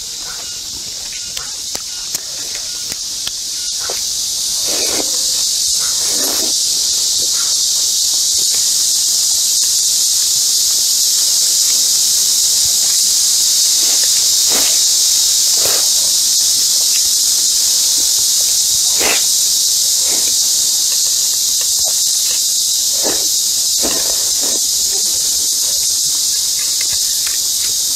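Loud, steady, high-pitched buzzing of an insect chorus that swells up over the first few seconds, with short wet chewing and slurping sounds of a person eating saucy food scattered through it.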